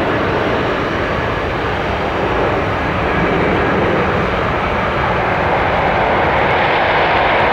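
Cessna Citation X business jet's twin Rolls-Royce AE 3007 turbofans running during the landing rollout: a steady jet noise that grows louder about halfway through.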